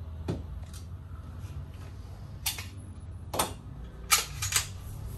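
Handguns being handled: about seven sharp clicks and knocks at uneven intervals, over a low steady hum.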